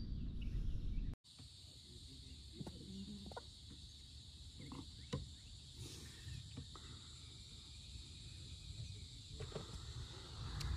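Low handling and wind rumble that cuts off abruptly about a second in, followed by quiet open-water ambience: a steady high hiss with a few faint, scattered knocks.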